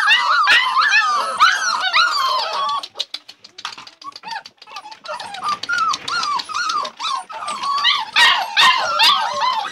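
A litter of Labrador puppies whining and yipping together, many high cries overlapping, with scattered sharp clicks. The cries thin out about three to four seconds in, then build again and are loudest near the end.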